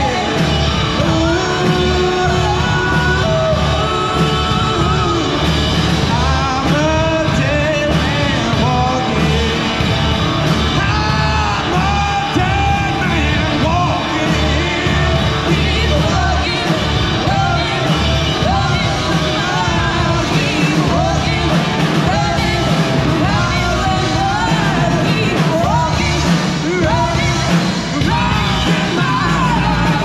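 A live rock band playing loud amplified music: electric guitar, bass, drums and keyboard under a male and a female singer. It is picked up on a GoPro's built-in microphone, which makes it sound poor.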